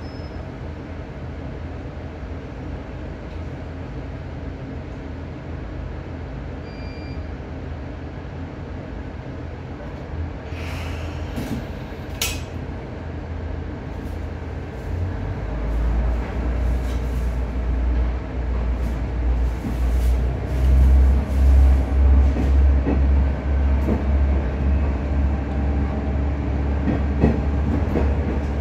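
Inside a JR KiHa 110 series diesel railcar under way: the steady drone of its diesel engine and running gear, with a few sharp clicks about halfway through. From about halfway on, the deep engine rumble grows much louder and pulses.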